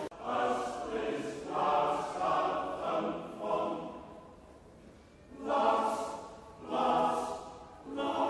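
Male voice choir singing unaccompanied in short phrases of about a second each, with a quieter stretch in the middle before three stronger phrases.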